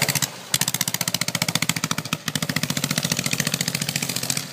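Fuel-injected kart-cross engine running under throttle as the kart drives off, a rapid, even firing pulse. The power dips briefly twice, about half a second in and again just after two seconds.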